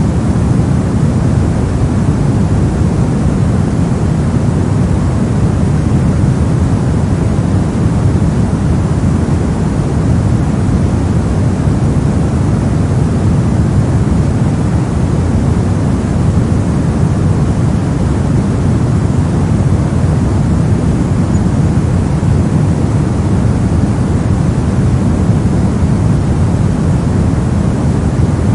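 Steady synthetic noise of the kind played for sleep and focus. Most of its weight sits low, so it sounds like a soft, deep hiss that does not change.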